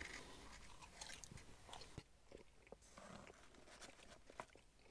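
Faint chewing: a person eating, with small scattered crunches and mouth clicks.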